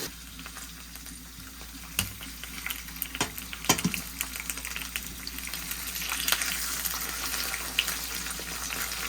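Flour-coated chicken frying in hot oil in a pot, sizzling with scattered crackles. There are a few sharp knocks about two, three and four seconds in.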